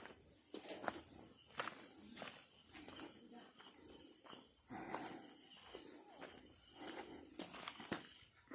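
Footsteps on rough ground at a walking pace, with insects chirping in two short rapid trills.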